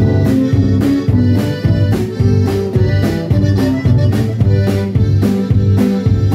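Live band playing an instrumental passage led by a diatonic button accordion, with electric bass and drum kit keeping a steady beat of about two strokes a second.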